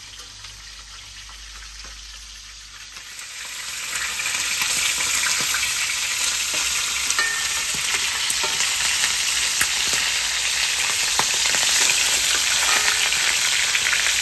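Pork ribs frying in a large pan, a steady sizzle with many small pops and spatters: the meat being browned before the vegetables go in. The sizzle is faint at first and grows much louder about three to four seconds in.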